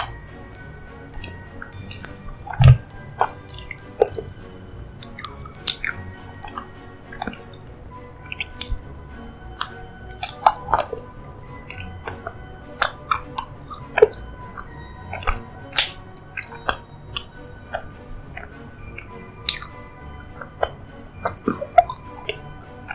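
Close-miked chewing of a soft, creamy dessert: irregular wet smacks, squishes and clicks of the mouth, over quiet background music.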